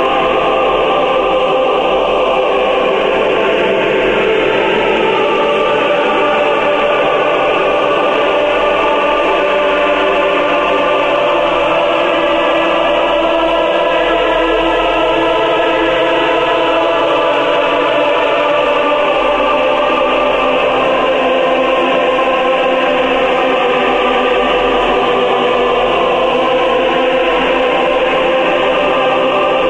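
Ambient chamber-pop music: layered choir-like voices holding long notes over slowly shifting sustained chords, with no clear beat.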